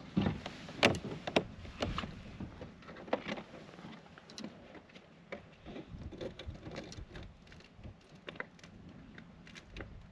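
Scattered knocks and clicks of gear being handled in a fishing kayak, two louder knocks in the first couple of seconds, then lighter ticks and taps.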